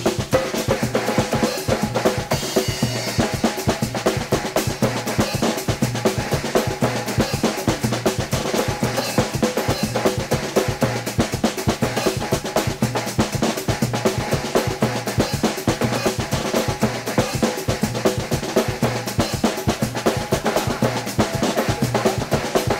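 Lively dance music driven by a busy, steady drum and percussion beat, with sustained instrument lines over it.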